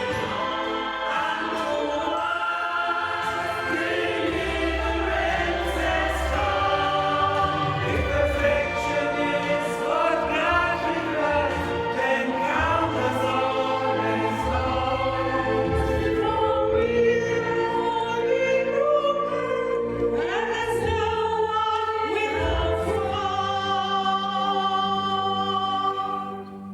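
An amateur choir singing a song in several voices, with low held notes underneath. The sound dies away just before the end.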